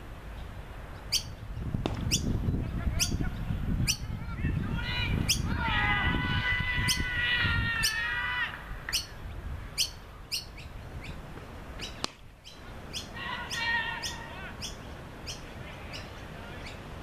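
Birds calling: short sharp chips repeating about every half second, with a longer, wavering call from about five to eight seconds in and a shorter one a little after thirteen seconds.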